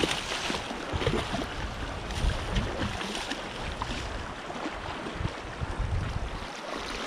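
Wind buffeting the microphone over sea water lapping and sloshing, with a hooked fish splashing at the surface at the start.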